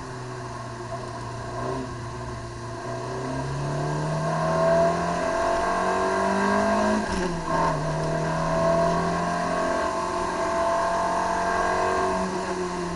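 Citroën AX GTI's four-cylinder engine heard from inside the cabin under load at speed. The revs climb over several seconds, drop sharply about seven seconds in, as at a gear change, then hold steady and high.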